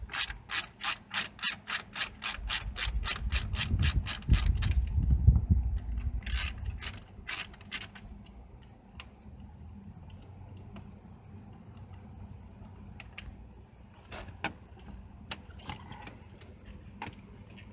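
Hand ratchet clicking in a steady run of about five clicks a second as a fastener is worked, with a low rumble of handling underneath. A few more ratchet clicks come a couple of seconds later, then only scattered small clicks and knocks.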